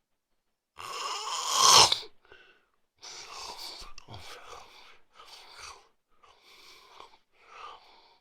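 A man snoring in his sleep: one loud snore that swells and peaks about two seconds in, then a run of shorter, fainter snoring breaths about one a second.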